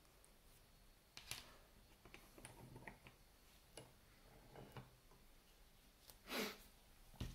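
Faint, scattered small metallic clicks and taps from a Robur disc detainer safe deposit box lock as its key is withdrawn and the lock face is handled, with one brief louder rush of noise about six seconds in.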